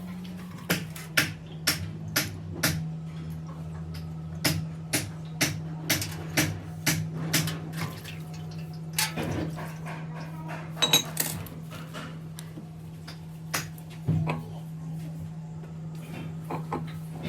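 Sharp metallic clicks and clinks of small metal parts and tools being handled, about two a second at first, then scattered, over a steady low electrical hum.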